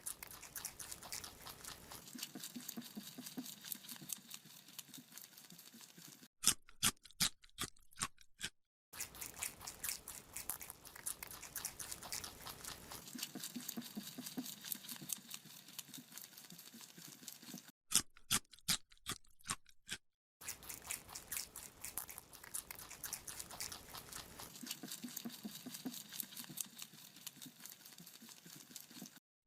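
A rabbit chewing a carrot: fast, steady crunching clicks, broken twice by a couple of seconds of sharper, separate crunches with silence between them.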